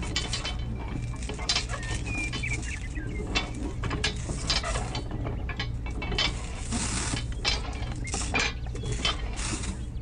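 Jute twine being pulled tight and tied around a load of small cloth sacks on a toy trailer: irregular clicks and scrapes of handling, over a steady low hum.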